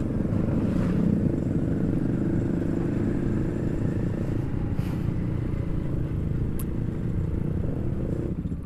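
Motorcycle engine running steadily under way, with wind and road rumble on the rider's helmet microphone.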